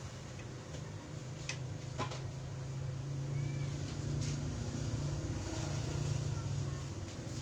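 Steady low hum, with a few short faint clicks and a faint murmur of voices.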